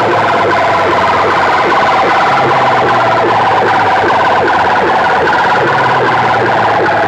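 A stack of metal horn loudspeakers blasting a siren-like electronic track at full volume. It is a fast, rapidly repeating warble over a low drone that switches on and off every few seconds.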